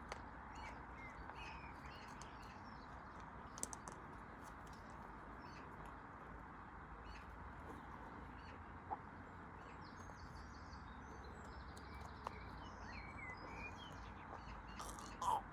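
Faint outdoor ambience: scattered bird calls over a steady hiss, with a few single sharp clicks.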